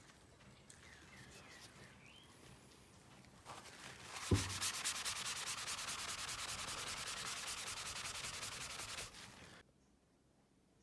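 Sanding by hand: a rapid, rhythmic scratchy rubbing starts about a third of the way in, with a single thump just after it begins, and stops abruptly near the end.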